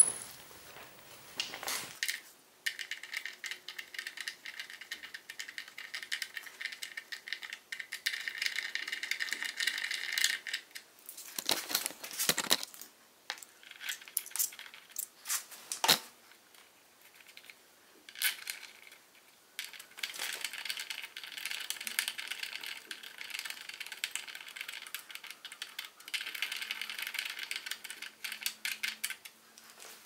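Socket ratchet clicking rapidly in two long spells as the fork-leg axle pinch bolts are run in, with a few sharp metallic knocks of tools in between.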